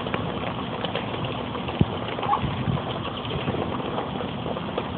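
Muscovy ducks pecking and dabbling at dry cat food on concrete, their bills making a rapid, irregular clicking and crunching, with one short peep a little past two seconds in.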